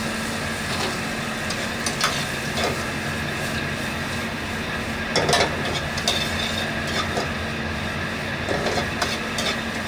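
Corn and squid being stir-fried and tossed in a steel wok over a gas flame. The metal ladle scrapes and clacks against the pan as the food tumbles, with a cluster of louder clatters about five seconds in, over a steady kitchen roar with a low hum.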